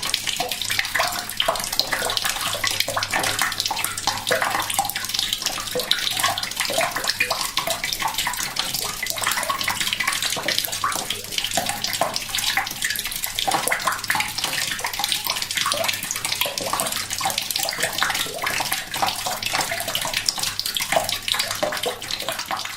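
Tap water trickling steadily into a bucket, a gentle, not heavy stream splashing onto the water already in it.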